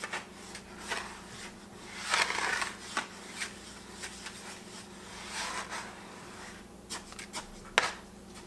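A spoon stirring dry fine stock salt mixed with Tang drink powder in a bucket: uneven gritty scraping strokes, loudest about two seconds in, with a few sharp clicks.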